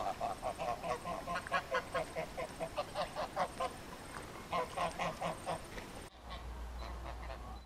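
A flock of domestic geese honking in a rapid series of short calls, about three or four a second, with a brief pause near the middle. About six seconds in, the calls stop abruptly and only a low steady rumble remains.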